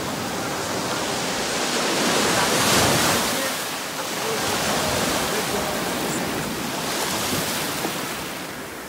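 Sea surf breaking and washing in around the legs of people standing in the shallows: a steady rush of waves that swells about two to three seconds in.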